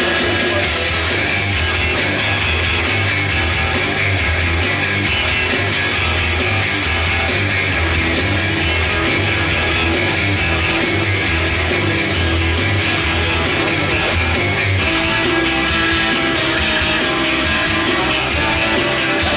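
Rock music with guitar and a fast, steady beat, loud throughout; the deep bass drops out about three-quarters of the way through.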